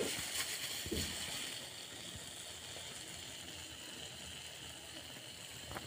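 Oil sizzling steadily in a frying pan around pieces of frying dough, with a plastic spatula knocking against the pan once about a second in.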